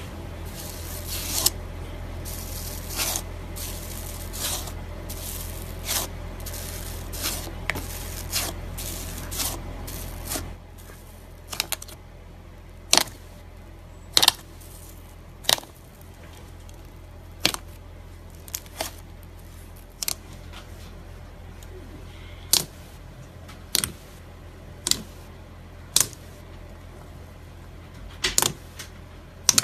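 Hands pressing and kneading slime. For the first ten seconds, clear bubbly slime gives dense wet clicks and crackles over a low hum. Then thick white slime gives sharp, separate pops about every second or two as fingers push into it and air pockets burst.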